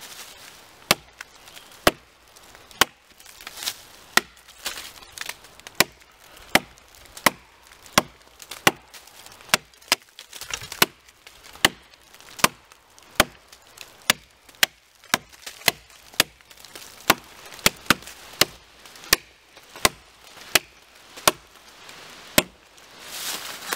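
Schrade SCAXE9 axe chopping into a log: a steady run of sharp wooden chops, about three strikes every two seconds, as the blade cuts a notch.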